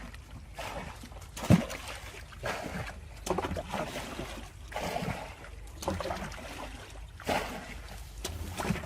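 Water splashing and trickling in uneven bursts, with one sharp knock about one and a half seconds in.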